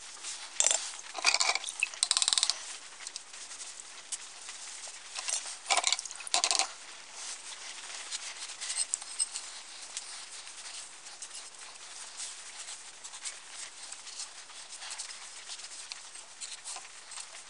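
Terry-cloth towel rubbing and wiping a metal camp-stove part, a steady cloth rustle with several louder scrubbing strokes in the first seven seconds.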